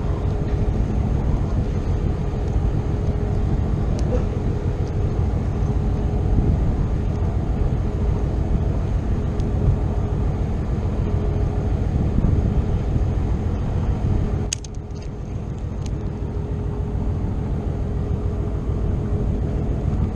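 Boat engine running steadily: a low rumble with a steady hum. It turns briefly quieter about fifteen seconds in, with a few light clicks.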